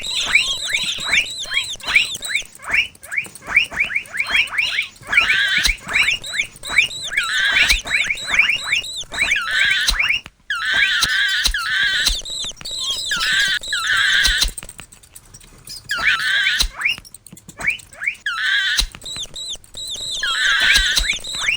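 Mouse squeaking sound effects: a rapid run of short, high-pitched squeaks, several a second, falling into clusters of quick chirps. They cut out briefly about ten seconds in.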